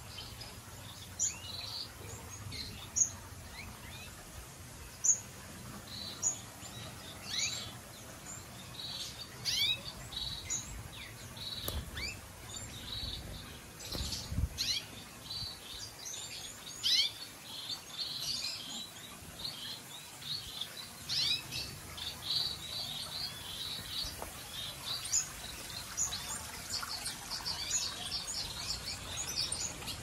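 Small aviary finches and canaries chirping: many short, high chirps and quick sweeps scattered throughout, no continuous song.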